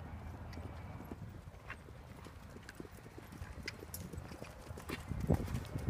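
Hoofbeats of several horses moving around a sand-and-dirt arena, an irregular soft thudding that grows louder near the end as a horse comes close.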